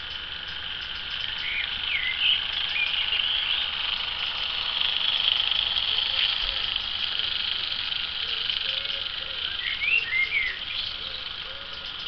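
Battery-operated toy train's small electric motor whirring as the train runs around its plastic track, growing louder as it passes close by and fading as it moves away. Short bird chirps come about two seconds in and again around ten seconds in.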